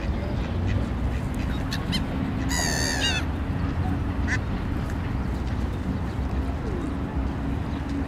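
Waterbirds calling at the shore: a mixed group of Canada geese, mallards and gulls. One loud, wavering, high-pitched call lasts about half a second, a few seconds in, with a few short calls around it, over a steady low hum.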